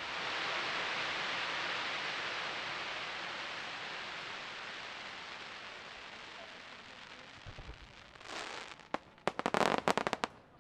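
Fireworks: a long crackling hiss from a burst shell, fading away over about eight seconds. Near the end come a few low thumps, then a rapid cluster of sharp pops and crackles.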